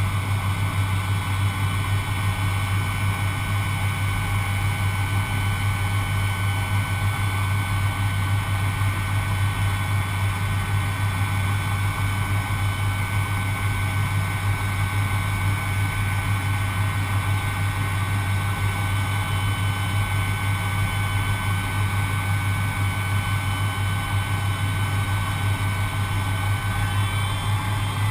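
Steady jet engine noise heard inside the Avro Vulcan XH558, from its four Rolls-Royce Olympus turbojets. There is a strong low hum with thin, steady whining tones above it, and the whining tones shift slightly near the end.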